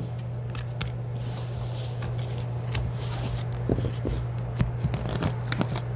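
Tarot cards being shuffled and handled by hand: a run of soft swishes and quick card flicks, with a few light knocks in the second half, over a steady low hum.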